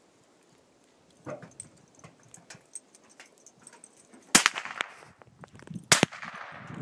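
Two sharp cracks of a Savage Cub .22 bolt-action rifle firing, about a second and a half apart, the first trailing a brief echo.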